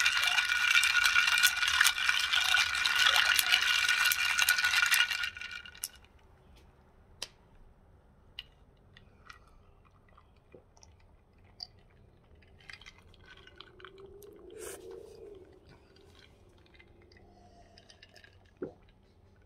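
A stir stick rattling rapidly against the inside of a glass mason jar of juice, the glass ringing, until it stops about five seconds in. Then faint swallowing and small clicks as the jar is drunk from.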